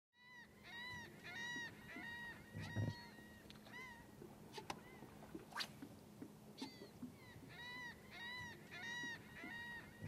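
Faint bird calls: many short calls that rise and fall in pitch, coming in quick clusters, over a faint low steady hum, with a few sharp clicks.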